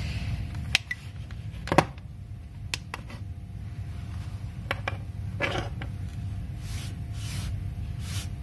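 Clicks and knocks of a plastic UV nail lamp's housing being handled and set down on a wooden bench, the loudest a sharp knock about two seconds in, over a steady low hum. Soft hissing puffs repeat about every 0.7 s near the end.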